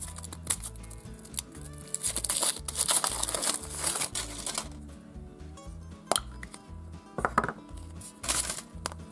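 Foil wrapper crinkling as it is peeled off a chocolate surprise egg for the first four seconds or so. Then a few separate sharp cracks and clicks as the chocolate shell is broken and the plastic toy capsule inside is handled, over background music.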